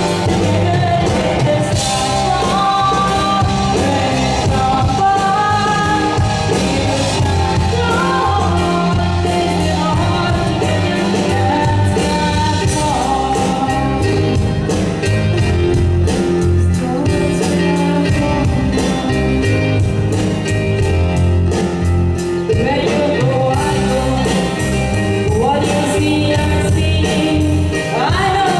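Live band music: a woman singing a slow ballad over guitars, bass guitar, keyboard and drums, loud and continuous.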